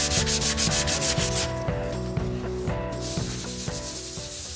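Sanding block with stick-on sandpaper rubbed back and forth over body filler and paint on a 1967 VW Beetle's door, in quick strokes about six a second. The strokes soften after a second and a half and turn into a steadier hiss near the end, then cut off.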